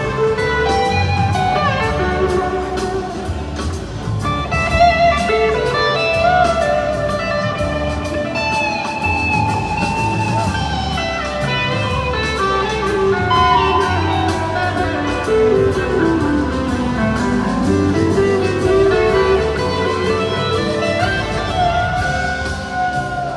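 Live blues-rock band playing at full volume: electric guitars and a drum kit, with a lead guitar line that slides smoothly up and down in pitch, including one long slide down and back up about two-thirds of the way through.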